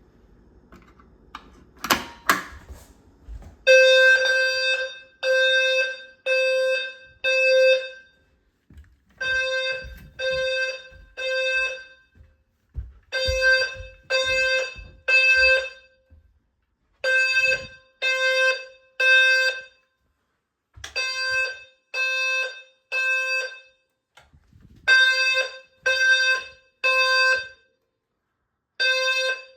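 Fire alarm low-frequency sounder going off in the temporal-three evacuation pattern: three low, buzzy beeps about a second apart, a short pause, then three more, repeating. This is the fire alarm system being activated for a test. A brief clatter comes about two seconds in, just before the beeping starts.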